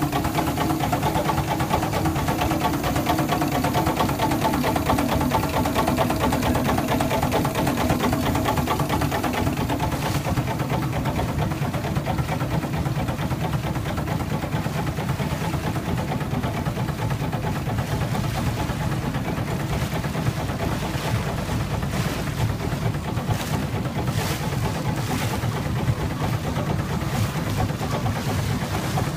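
A boat engine running steadily.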